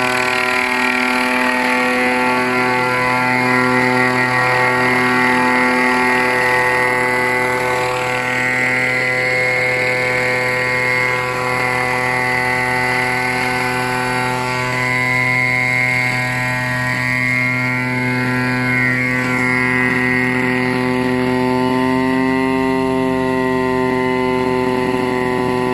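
Quanfeng oil-powered (petrol) unmanned crop-spraying helicopter's engine and rotor running as it flies in and lands, a steady droning note that rises slightly in pitch near the end.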